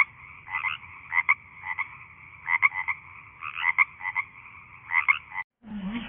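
Frog croaking in short calls of two or three quick pulses, about two calls a second. The croaking cuts off about five and a half seconds in, and a different, lower animal sound starts just before the end.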